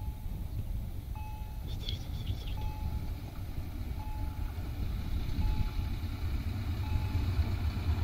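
Short electronic warning beeps, one about every second and a half, typical of a level crossing signal, over the low rumble of an approaching SA107 diesel railcar that grows louder through the second half.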